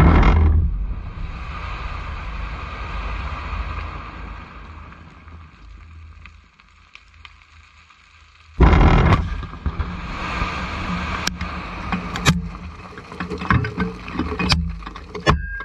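Two quarry blasting shots set off by one initiation. The first, distant one is a sudden boom that fades into a long rolling rumble. The second, much closer blast hits about eight and a half seconds in and is followed by scattered sharp knocks of rock debris coming down.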